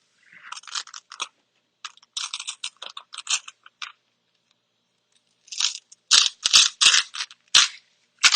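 Large vinyl wall decal sheet crinkling and rustling as it is handled and shifted on the wall, in two bouts of crackling with a pause of about a second and a half between them; the second bout is louder, with sharp crackles.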